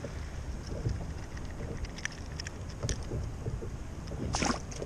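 Wind rumbling on a kayak-mounted action camera's microphone, with a few light clicks and one brief louder noise near the end.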